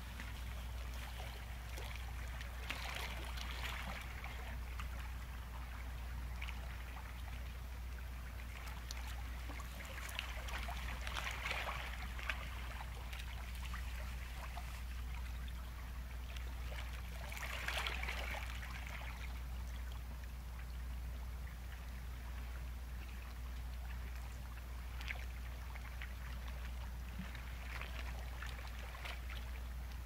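Ocean waves washing against a rocky shore, the hiss swelling and fading several times, over a steady low rumble.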